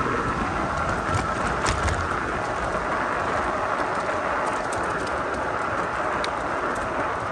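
Steady riding noise from a Cyrusher XF800 fat-tyre e-bike on the move: tyres rolling and air rushing past, with a few light clicks and rattles about one to two seconds in.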